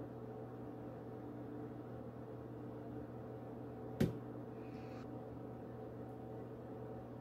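Steady background hum, broken about four seconds in by one sharp click as a knife edge is pressed down through the test line of an edge sharpness tester, with a faint hiss for about a second afterwards.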